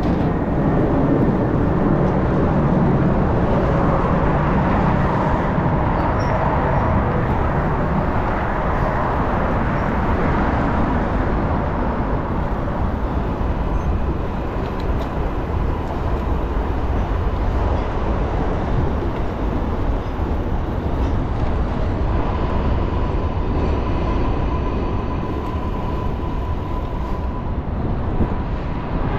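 Steady rush of wind and city traffic heard from a moving bicycle, easing slightly partway through.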